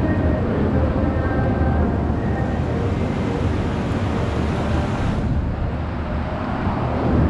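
Steady low rumbling background noise of a shopping-mall concourse picked up by a moving handheld camera, with no distinct events.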